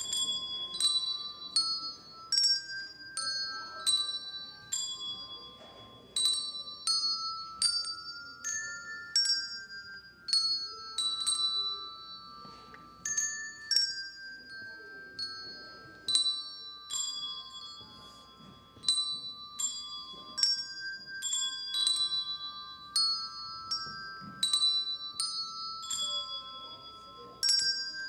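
Children's handbell choir ringing a tune: a steady succession of bell notes, often two or three struck together as chords, each ringing on and fading.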